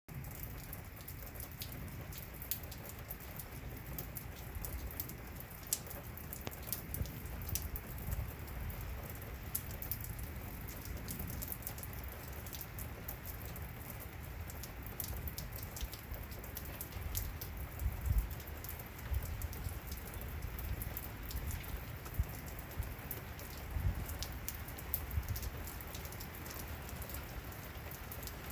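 Steady rain falling on wet pavement and surfaces, with many sharp drop ticks. Low rumbles swell now and then, loudest about two-thirds of the way through.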